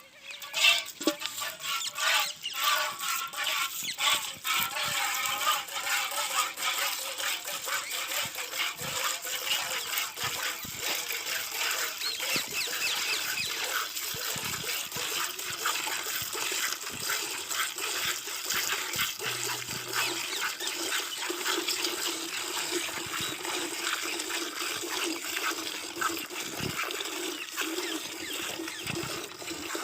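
Cow being milked by hand into a pail: rapid, rhythmic squirts of milk hitting the milk already in the pail, with a frothy, splashing hiss.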